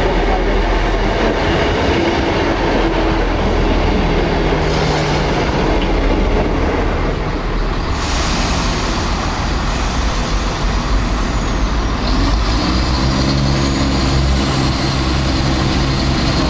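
A First ScotRail Class 158 diesel multiple unit running into the station, with engine and wheel-on-rail noise. About eight seconds in the sound cuts to a Class 170 Turbostar diesel unit approaching, its diesel engine settling into a steady note of several tones from about twelve seconds in.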